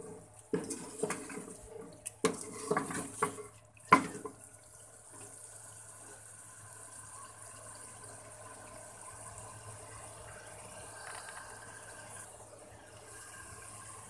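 A cooking spoon scraping and clacking against a metal pot as chicken is stirred in a thick masala, with a sharp knock about four seconds in. After that the masala sizzles steadily in the pot.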